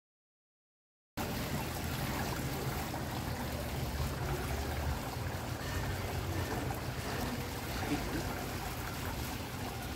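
Restaurant dining-room background noise: a steady hiss and low hum with an indistinct murmur of voices, cutting in abruptly about a second in after silence.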